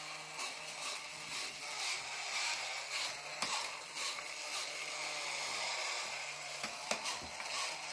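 Battery-operated Dozo the Steaming Clown tin toy running: its small electric motor and gears whir with light clicking and rattling as the clown sweeps its broom, the hum rising and falling in a repeating cycle with each sweep.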